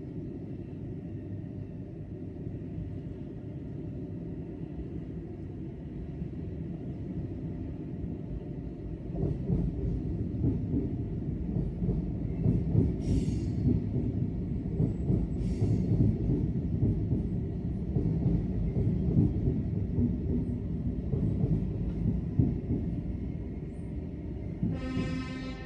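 Train rumbling through the station, growing louder about nine seconds in, with two short hisses along the way. A pitched tone starts near the end.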